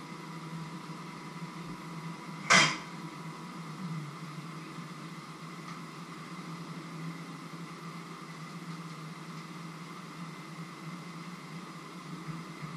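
Steady mechanical hum with a faint high whine, like an appliance or fan running, and one sharp knock about two and a half seconds in.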